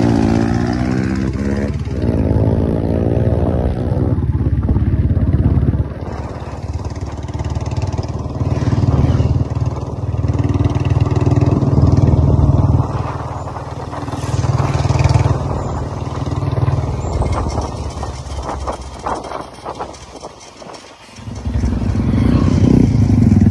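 Motorcycle engines running on the move, led by the low, steady beat of a Royal Enfield single-cylinder engine that swells and eases with the throttle. The revs climb in pitch in the first few seconds. The engine note drops away briefly near the end before picking up again.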